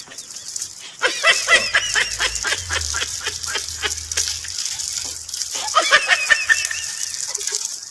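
A person laughing in quick runs of short pulses, starting about a second in and again near six seconds, while plastic wrapping crinkles as it is pulled off.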